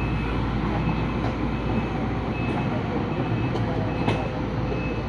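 Excavator's diesel engine running steadily, with a few short knocks as it works dredging mud.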